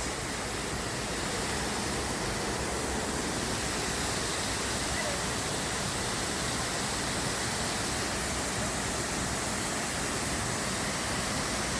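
Waterfall on a river, a steady, even rush of falling water.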